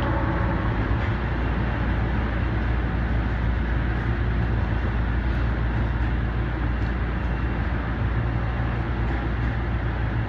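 Osaka Subway 25 series train running at speed, heard from inside the car: a steady, even rumble of wheels on rail.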